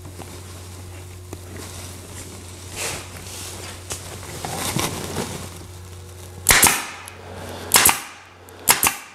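Upholstery staple gun firing staples through burlap into the wooden seat frame, about four sharp shots in the last few seconds. They follow faint rustling of the burlap being stretched by hand.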